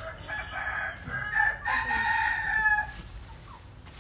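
A young rooster crowing once, a cock-a-doodle-doo lasting about two and a half seconds.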